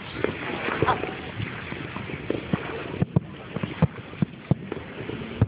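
Fireworks going off: a string of irregular sharp pops and bangs over a steady background noise.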